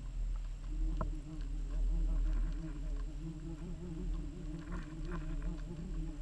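Underwater hum of the boat motor towing the lures, a steady low drone with a wavering pitch and a few faint ticks.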